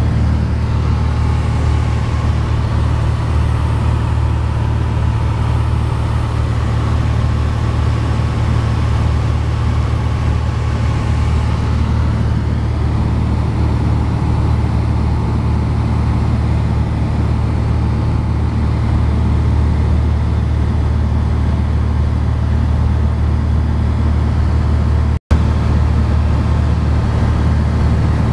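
Piper Dakota's six-cylinder Lycoming O-540 piston engine and propeller running steadily in flight, a low even drone heard from inside the cabin. The sound cuts out for an instant about 25 seconds in.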